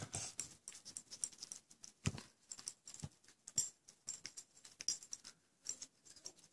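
Faint camera-handling noise: irregular soft clicks and taps, with louder knocks about two and three and a half seconds in, from fingers fiddling with the camera to get it to refocus.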